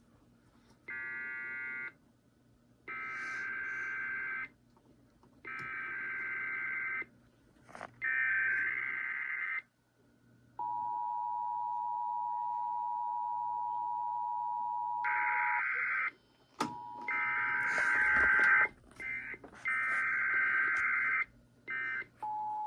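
Emergency Alert System test tones from a radio broadcast: a run of about four data bursts of a second or so each (the SAME digital header), then the steady two-tone EAS attention signal for about four seconds, then another run of data bursts.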